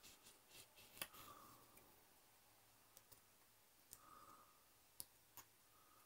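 Near silence broken by about half a dozen faint sharp clicks: a hobby knife tip cutting and picking at bare metal foil on a small model part.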